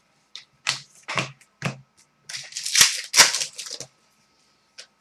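Trading cards being handled and flipped through: a run of quick flicks and snaps of card stock with a brief rustle in the middle.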